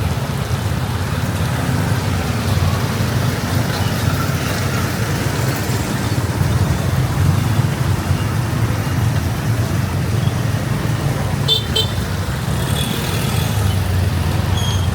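Street traffic on wet roads: a steady low engine and road rumble, with a short vehicle horn toot about eleven and a half seconds in and fainter beeps near the end.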